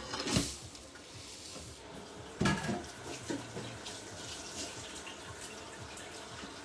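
Kitchen tap running into a stainless steel sink as an oyster is rinsed under the stream, with a few short knocks and clicks of shell and hands, the loudest about two and a half seconds in.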